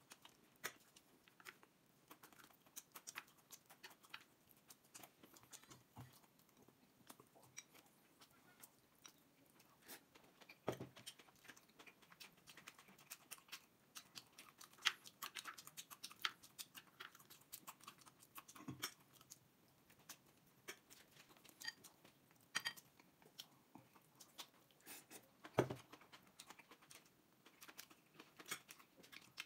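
A person chewing and eating at close range: many small wet mouth clicks and soft crunches throughout, with a few louder short knocks about 11, 19 and 26 seconds in.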